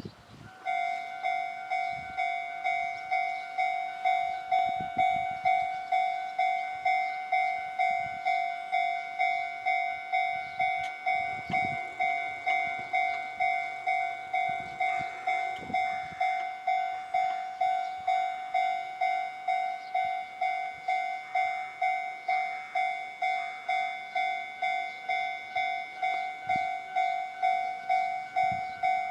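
Japanese railway level-crossing warning bell ringing steadily at about two dings a second, starting just under a second in: the crossing signal warning that a train is approaching.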